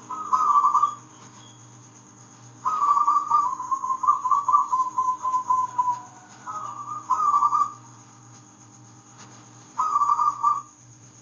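Zebra dove (perkutut) cooing in trilled, whistle-like phrases: a short burst at the start, a long rattling phrase of about three seconds that drifts slightly lower, then two shorter bursts. A low steady hum runs underneath.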